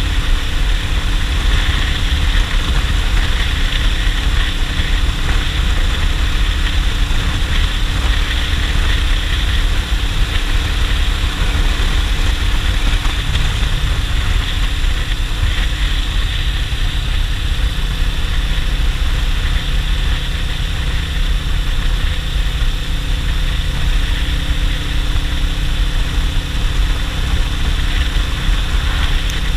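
Suzuki GS500E's air-cooled parallel-twin engine running steadily under way, with wind rushing over the camera microphone.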